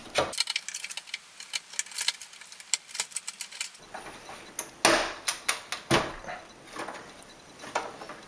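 Small clicks and knocks of a processor daughter card being worked into its tight slot in an IBM PS/2 Model 95's chassis, with two heavier knocks about five and six seconds in.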